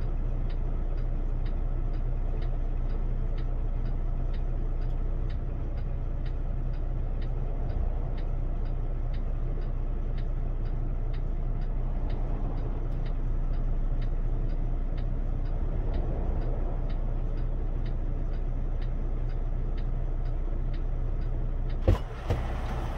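Kenworth T680's diesel engine idling steadily, heard from inside the cab, with a regular tick about twice a second. A sharp knock near the end.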